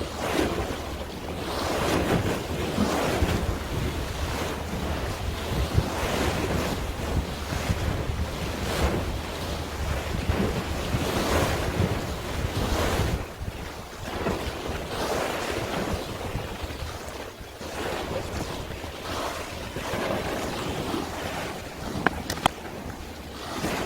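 Sea waves washing in swells every couple of seconds, with wind buffeting the microphone, and a couple of sharp clicks near the end.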